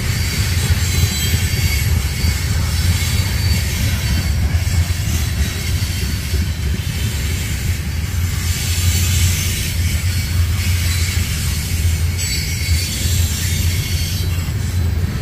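A train rolling past: a steady heavy rumble with a faint high wheel squeal, clearer in the first few seconds.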